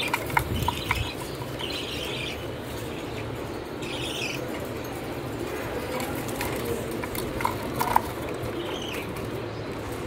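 Cockatiels in a wire cage giving short chirps now and then, with a few sharp clicks and rattles as a hand works among them, the loudest click about eight seconds in.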